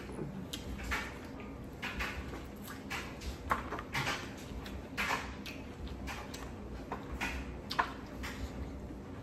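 Close-up eating sounds of a person chewing seafood boil: irregular wet smacks and clicks, a couple a second, with no talking.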